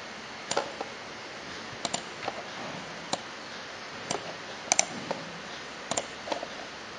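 Computer mouse clicking irregularly, about a dozen single and double clicks, as points are placed with Photoshop's pen tool to make a selection.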